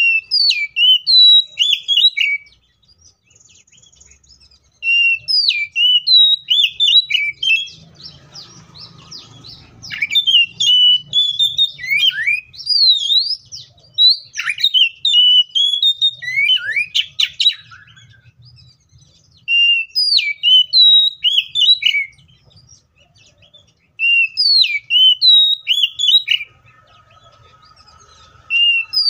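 Oriental magpie-robin (kacer) singing in bursts of rapid, varied whistled phrases with sharp up-and-down glides, about six bursts separated by short pauses.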